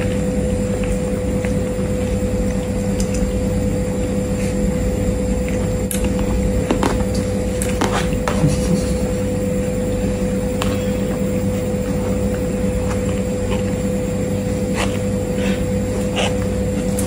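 A steady hum with a constant mid-pitched tone, and scattered faint clicks over it.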